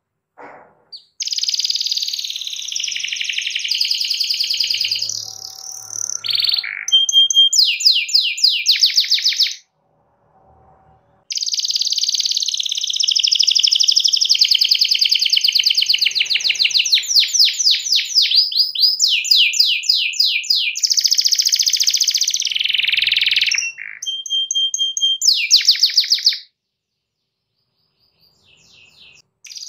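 Domestic canary singing long, loud song phrases of warbling mixed with fast trills. The song breaks off for about two seconds in the middle, then stops a few seconds before the end.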